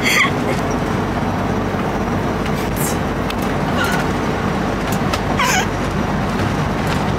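Steady low drone of a bus engine heard from inside the passenger cabin, with a few brief higher-pitched sounds over it.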